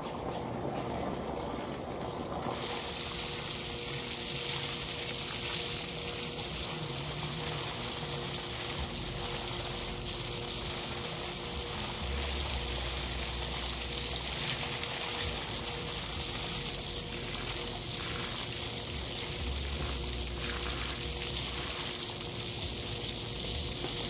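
Spring water pouring in a steady stream from a pipe spout and splashing onto the ground below, getting fuller about two seconds in.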